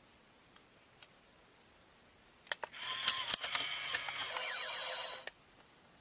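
Two sharp clicks a little before halfway, then a burst of electronic sound effect from the Ultimate Mechanix Unicorn Gundam toy's built-in speaker, about two seconds long, with held notes and falling sweeps.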